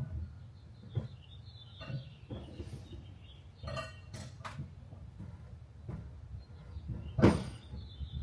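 Scattered knocks and metallic clinks of hand tools and parts being handled while working on an engine, roughly one every second, with one louder knock near the end.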